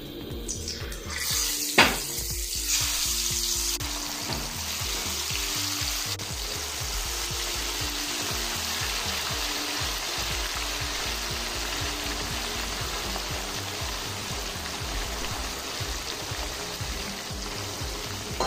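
Marinated fish pieces going into hot oil in a frying pan: the oil bursts into a loud, steady sizzle, with a single sharp clink about two seconds in. The fierce bubbling is the fish's water boiling out into the oil.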